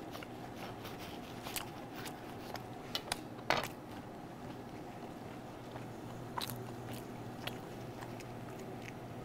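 Sparse crackles and clicks of a freshly baked bread loaf being cut, handled and chewed, the loudest about three and a half seconds in, over a steady low room hum.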